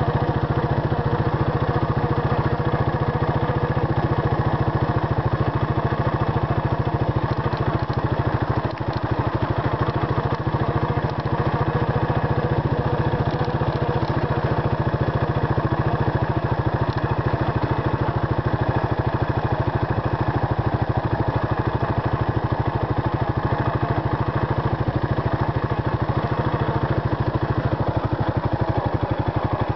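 Suzuki Savage LS650's single-cylinder four-stroke engine running at a steady, even pace while the motorcycle is ridden, dipping briefly about nine seconds in.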